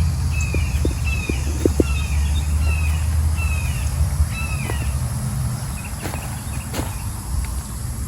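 An animal calling a run of short, high notes that each slide downward, roughly two a second, fading out a little past halfway. A steady low rumble sits underneath.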